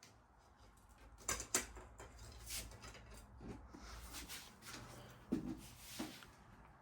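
Faint handling noises: a few light clicks, two about a second in and two more near the end, with soft rustling in between.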